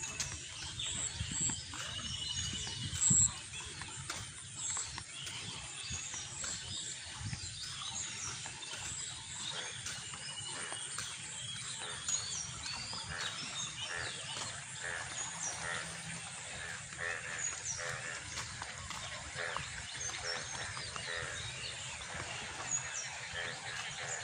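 Many birds chirping and calling from the trees over a low rumble, with one short knock about three seconds in.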